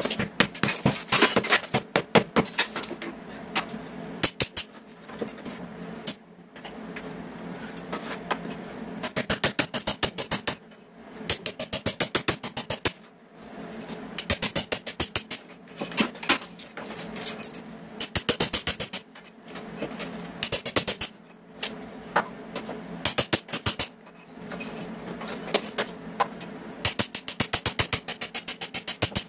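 Hand hammer blows knocking through a masonry wall to open a hole for a kitchen exhaust fan: quick runs of sharp strikes, several a second, in bursts of a second or two with short pauses between.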